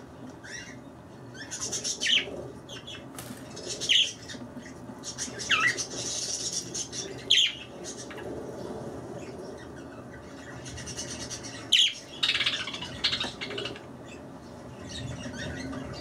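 Pet budgerigars chirping and chattering: sharp, short chirps every second or two, with stretches of quick warbling chatter between them.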